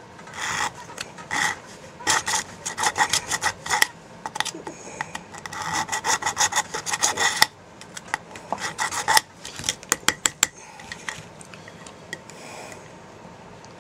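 Fine-toothed razor saw cutting into a black plastic part with short back-and-forth rasping strokes in several spells, deepening a cut that was too shallow. The strokes stop about nine seconds in, followed by a few light ticks.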